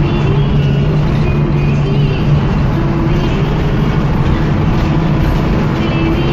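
Hino AK-1J bus engine running steadily under way, with loud, even road and drivetrain noise heard from inside the driver's cab.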